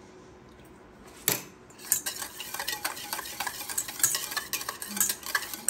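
Wire whisk beating a thick curd batter in a stainless steel bowl. There is a single clink about a second in, then quick, continuous clicking of the whisk wires against the bowl.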